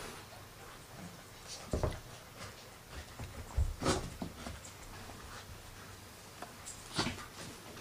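A collie puppy and an adult collie play-wrestling: scuffling, with a few short knocks and rustles about two, four and seven seconds in.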